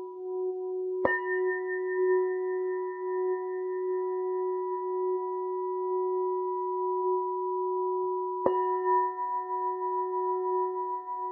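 Hand-held gold-plated crystal chalice singing bowl ringing a sustained F# tone with a slow pulsing waver. It is struck twice, about a second in and again about eight seconds in, each strike bringing in brighter, higher ringing overtones over the steady hum.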